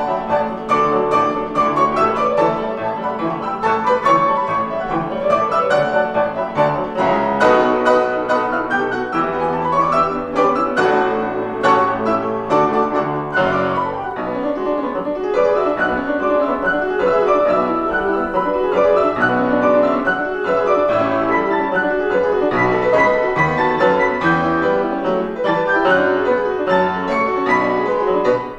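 Grand piano played four hands by two pianists: a busy, continuous passage of quick notes spread across the keyboard.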